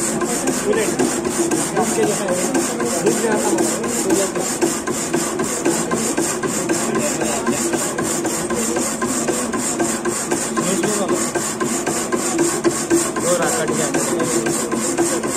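Power hacksaw machine cutting a flat metal piece: the blade reciprocating in a steady, even rhythm of rasping strokes over the constant hum of the machine.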